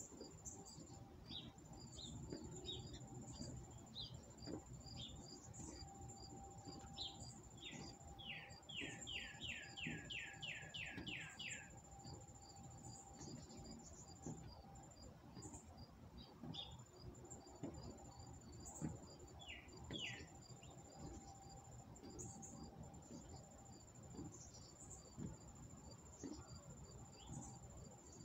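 Faint outdoor birdsong: scattered chirps, and a quick run of about ten descending chirps from about eight to twelve seconds in, over a steady high insect trill. Soft low thumps come and go underneath.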